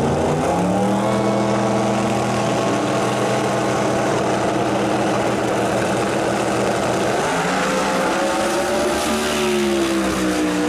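Two drag racing cars' engines held at a steady high rev on the starting line; about seven seconds in the sound changes and the pitch climbs as the cars launch down the track.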